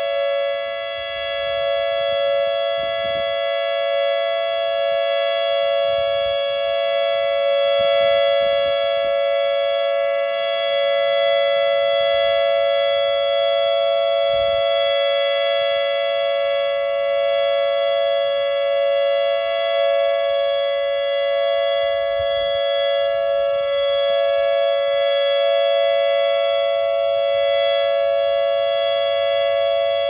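Federal Signal Modulator 8032B electronic outdoor warning siren sounding its "ThunderMod" alert tone: a loud, steady chord of close pitches held without rising or falling, part of a three-minute siren test.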